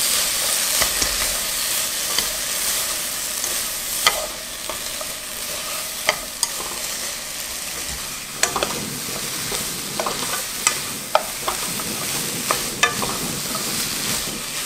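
Sweet potato stems, onion and green onion sizzling as they are stir-fried in a pan, stirred and tossed with wooden utensils. A steady frying hiss with scattered sharp clicks of wood against the pan.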